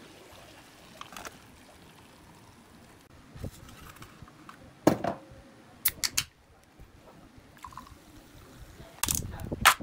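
A run of kitchen handling sounds: water running faintly into an instant noodle cup, a few sharp taps and crinkles as the foil lid is pressed down, then cola poured from a can into a glass mug, the pour loudest near the end.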